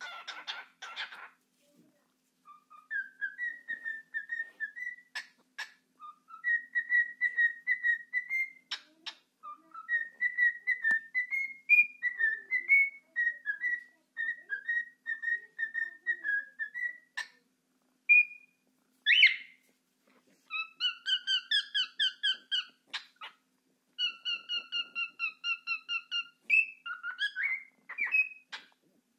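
Cockatiel whistling its song: fast strings of short whistled notes, mostly level in pitch with small rises, in phrases broken by brief pauses. A harsher chirp comes at the start and again about two-thirds through.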